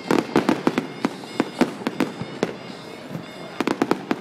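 Aerial fireworks display: shells bursting in rapid, irregular volleys of sharp bangs, with clusters of reports near the start, around the middle and again near the end.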